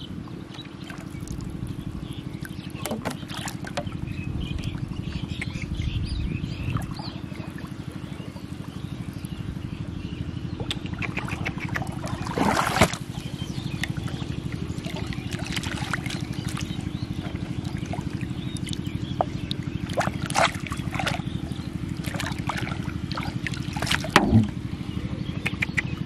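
A small engine drones steadily at a low pitch with an even pulse throughout, with water trickling. A few short sharp sounds stand out over it, the loudest about halfway through and two more near the end.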